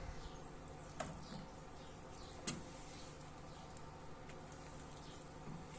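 Quiet kitchen handling as carrot cake batter is transferred from a mixing bowl into a cake tin: a few light knocks of a utensil against the bowl, the sharpest about two and a half seconds in, with faint scraping.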